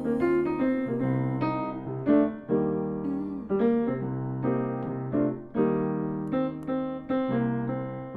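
Acoustic grand piano played solo, chords and notes struck one after another and left to ring.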